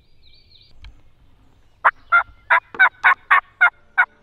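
A turkey call yelping: a run of eight short, loud, evenly spaced yelps, about three or four a second, beginning about two seconds in.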